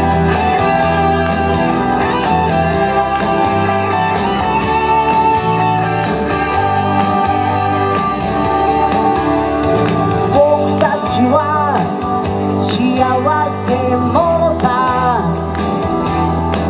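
An upbeat pop song played on stage: guitar over a steady beat, with a wavering sung melody line coming in about ten seconds in.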